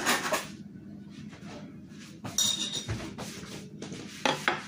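Dishes and utensils clattering, with a clink of crockery that rings briefly about two and a half seconds in and a couple of sharp knocks near the end.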